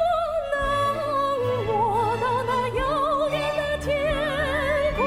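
A male singer singing a slow Mandarin phrase in a high, operatic-style voice, holding long notes with a wide vibrato over a symphony orchestra with bowed strings. The voice steps down to lower notes about a second and a half in, climbs back to a long held note, and starts a new phrase near the end.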